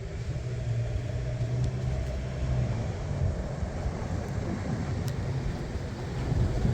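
A motor vehicle's engine running with a low, steady rumble and hum.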